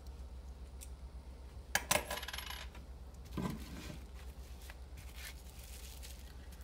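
Metal coins set down on a wooden table: two quick clinks with a short metallic ring about two seconds in, followed by faint rustling as a bubble-wrapped, taped parcel is handled.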